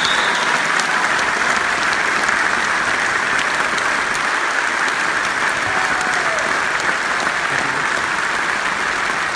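Large arena crowd applauding steadily: an ovation after a band member is introduced.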